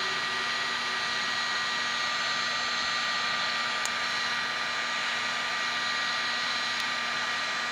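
Electric heat gun (paint stripper gun) blowing hot air steadily with a constant whine, heating a laptop circuit board to melt the solder so the components come off. A faint tick sounds twice.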